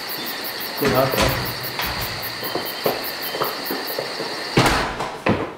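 Insects chirring in a high, pulsing drone, about four or five pulses a second, with brief indistinct voices about a second in. Near the end a door shuts with a loud knock and clunks, and the insect sound cuts off.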